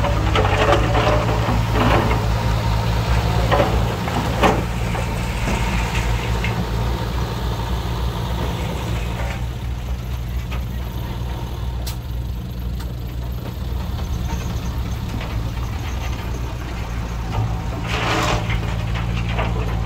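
Heavy diesel engine of earthmoving machinery running steadily, with clattering and a few sharp knocks in the first half and a brief rush of noise near the end.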